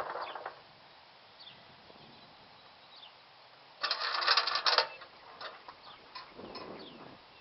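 Craftsman garden tractor engine cutting off in the first half second, then quiet with faint bird chirps. About four seconds in comes a loud metallic rattle lasting about a second.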